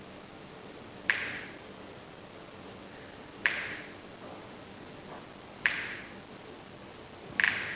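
Four sharp finger snaps about two seconds apart, the last one doubled. The snaps keep time for the campaign's count of a child dying from extreme poverty every few seconds.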